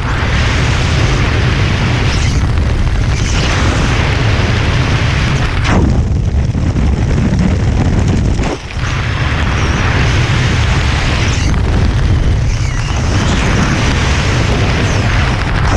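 Loud wind buffeting a skydiver's camera microphone, a steady rushing rumble that drops off briefly about eight and a half seconds in.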